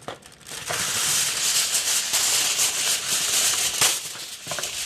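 Aluminium foil rustling and crinkling as a sheet is pulled out and handled, starting about half a second in and easing off near the end.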